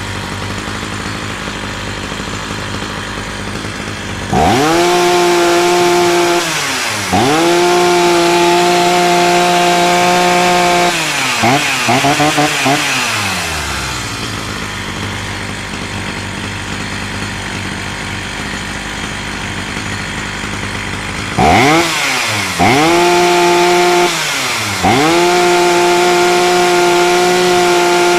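Husqvarna 61 two-stroke chainsaw idling, then revved to full throttle several times. Each rev rises sharply, holds high for a few seconds and falls back to idle, with a few quick blips in between. The saw is being run up and down to test its carburettor tuning.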